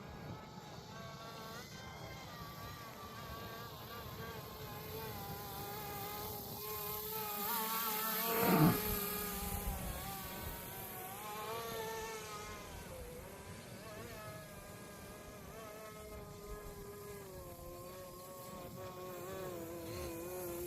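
Roban MD500 scale electric RC helicopter in flight, its motor and rotor whine wavering up and down in pitch. About eight seconds in it comes close and grows loud, then the pitch drops sharply as it passes.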